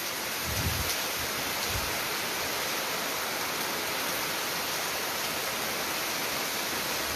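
Rain pouring down in a steady, even hiss, with a few brief low rumbles in the first two seconds.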